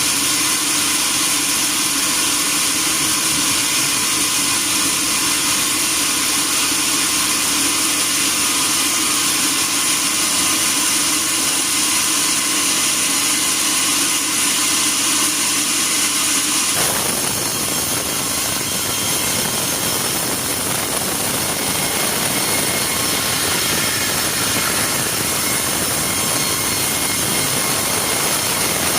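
Sawmill machinery running: a steady loud hiss from the saw and its motor. About two-thirds of the way through the sound changes abruptly and becomes fuller and lower.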